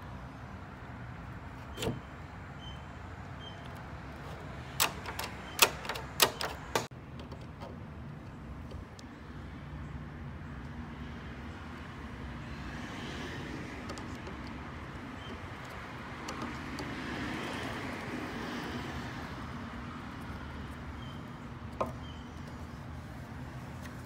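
Metal clicks of an old Weiser handleset being fitted back onto a door: one click about two seconds in and a quick run of about six sharp clicks a few seconds later. After that comes a soft rasp as a screwdriver drives a handle mounting screw, then one more click near the end.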